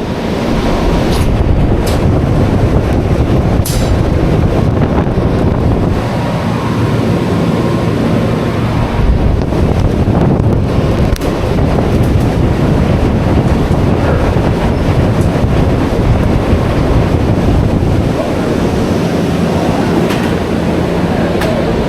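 Loud, steady mechanical rumble with a rushing noise and a few faint clicks.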